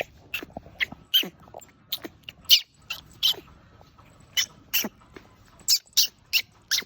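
Baby monkey giving short, high-pitched squeaky calls again and again, about two a second, many of them sliding sharply down in pitch.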